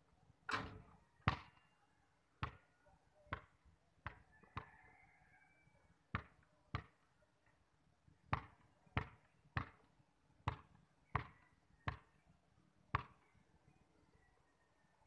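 Basketball bouncing on a concrete court: a few uneven bounces, then steady dribbling at roughly one and a half bounces a second, about fifteen hits in all.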